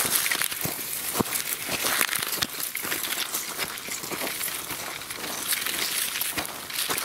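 Dry leaves and twigs crackling and crunching as a toy car is pushed by hand across the forest floor, with a dense, irregular run of small clicks.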